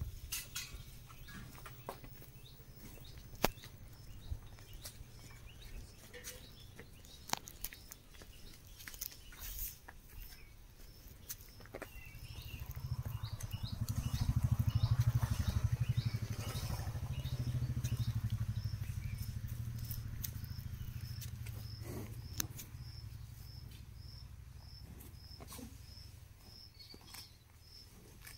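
A cow's hooves and a person's footsteps clicking and pattering on the ground as the cow is led on a rope, over a low rumble that swells and fades in the middle. A short high chirp repeats about twice a second through the second half.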